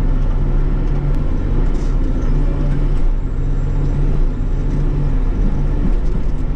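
Bobcat E42 mini excavator's diesel engine running steadily while the digging arm works.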